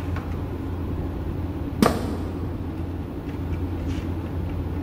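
Steady low mechanical hum in a shop, with a single sharp knock about two seconds in.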